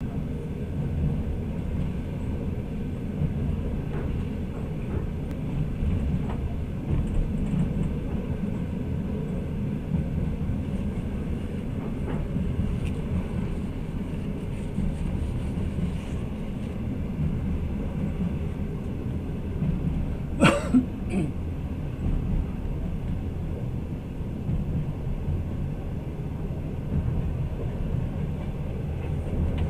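Passenger train running, a steady low rumble heard from inside the carriage. Two sharp knocks about half a second apart come about two-thirds of the way through.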